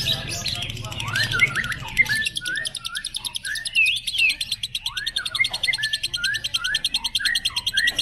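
A lovebird doing its ngekek, the long unbroken chatter song: a fast, even run of high clicks, more than ten a second, sets in about two seconds in and carries on over a string of short sweeping chirps.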